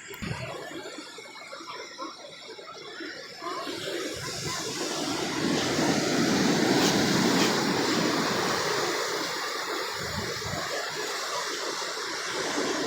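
Ocean surf: a wave's wash swells about four seconds in, peaks, then eases off.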